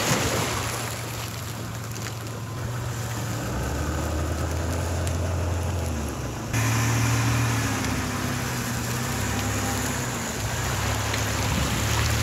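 SUV engine running at low speed while it tows a boat trailer on a wet launch ramp, a steady low hum that changes suddenly about six and a half seconds in.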